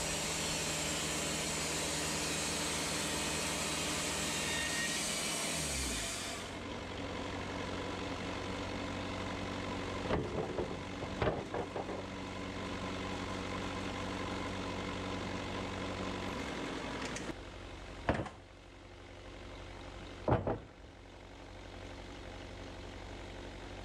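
Portable band sawmill cutting through an oak log, its engine running under load with the hiss of the blade in the wood. About six seconds in the cut ends and the engine note drops to a lower steady run. It is broken by a few clanks midway and two sharp knocks near the end as the slabs are handled.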